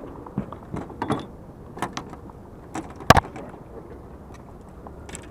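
Irregular clicks and knocks, with one sharp, loud knock about three seconds in, over a low steady hum.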